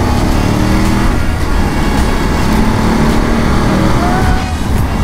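Wind buffeting and road noise from a BMW F 850 GS Adventure motorcycle at highway speed as it accelerates, with the engine's low steady hum underneath.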